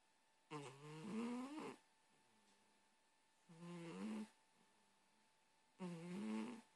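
A cat snoring: three pitched snoring breaths about two and a half seconds apart, each about a second long and rising slightly in pitch.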